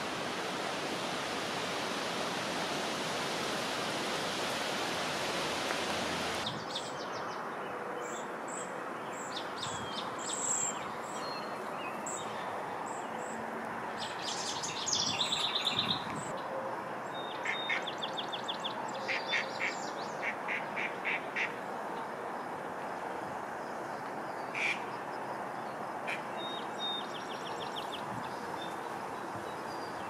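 Steady rushing water, then about six seconds in an abrupt change to a quieter outdoor ambience with wild birds calling: scattered high chirps and short runs of quick repeated notes.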